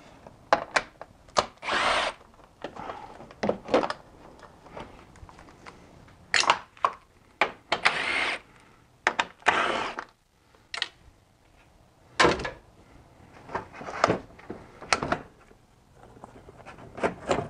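Cordless drill/driver spinning in short bursts of a second or less, several times, backing out the headlight's mounting bolts, with sharp clicks and knocks between the bursts.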